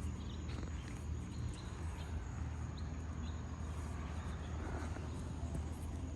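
A steady low outdoor rumble, with a few faint light ticks over it.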